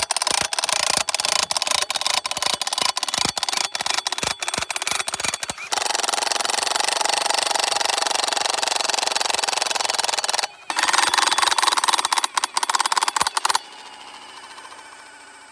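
Milwaukee impact wrench running under load to work an Xtracto stake puller, hammering with a dense rapid rattle. It runs in stretches with a brief break about ten seconds in, then stops a couple of seconds before the end, leaving a quieter steady sound.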